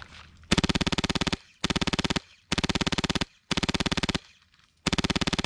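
HPA-powered airsoft light machine gun firing full-auto: five short bursts of rapid, evenly spaced shots with brief pauses between them, laying down covering fire.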